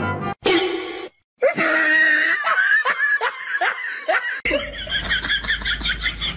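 Laughter in quick, repeated bursts, about three to four a second, after a brief dropout about a second in.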